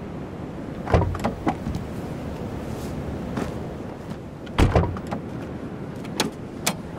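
SUV car door opening with a thud about a second in and slamming shut at about four and a half seconds, followed by a couple of sharp latch clicks near the end, over a steady background hiss.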